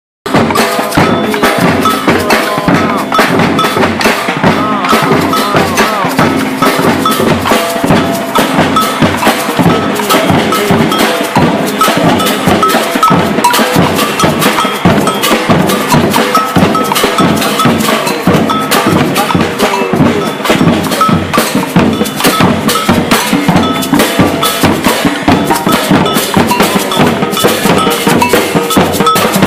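Percussion ensemble playing a steady, dense rhythm of drum strikes, with a cowbell ringing out on top.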